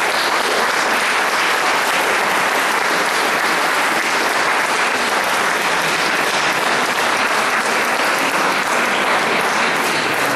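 Audience applauding steadily in a hall at the end of a scene.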